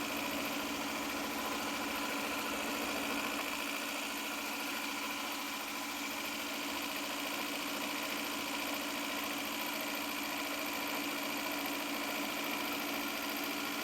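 Shark IQ robot vacuum running on its way back to its dock: a steady, unchanging motor hum.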